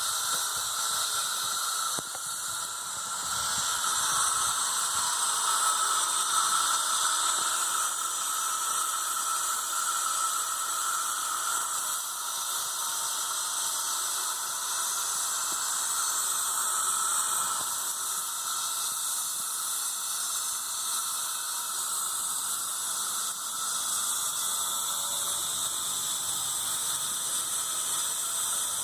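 Stone milling and grinding machinery running continuously: a steady, high-pitched whine and hiss.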